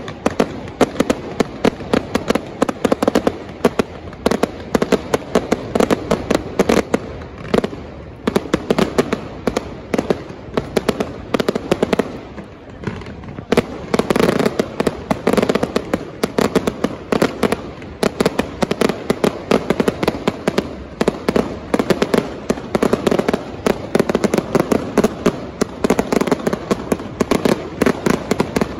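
Aerial fireworks going off in a dense barrage: rapid, continuous bangs and crackling from bursting stars, easing briefly about twelve seconds in.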